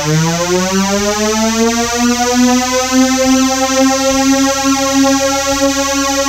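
Synthesizer tone gliding upward in pitch, then settling into a steady held note about two seconds in: end-card music.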